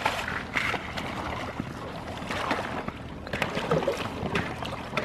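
Wading through shallow, icy water: irregular splashing and sloshing as thin ice is broken up.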